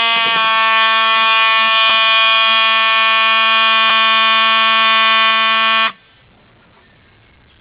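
Simplex fire alarm horn sounding a continuous, steady, buzzy tone with many overtones, over a shrill high steady tone from a second alarm horn. Both cut off sharply about six seconds in, leaving only faint room tone.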